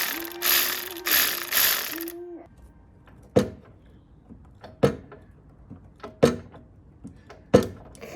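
Hand-tool work on a car's suspension: a few loud rasping bursts in the first two seconds, then sharp single clicks about every second and a half.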